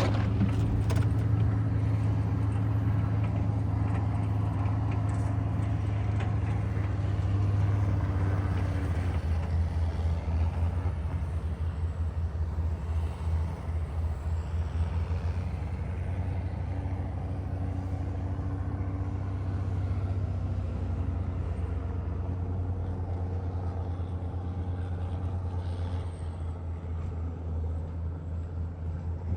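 Diesel engine of heavy snow-clearing equipment running steadily under load, a deep hum whose note shifts a couple of times as the machine works.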